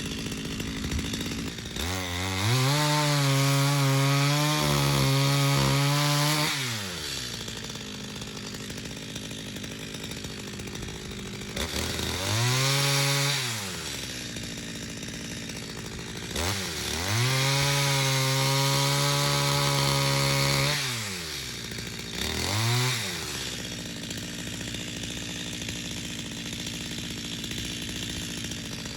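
Stihl MS250 single-cylinder two-stroke chainsaw revving to full throttle in three long bursts of a few seconds and one short burst near the end, falling back to idle in between, as it cuts the face notch into a cedar trunk.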